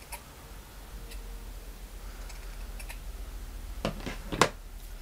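Scissors snipping through fluffy fabric, a few light clicks of the blades, then two louder sharp knocks near the end.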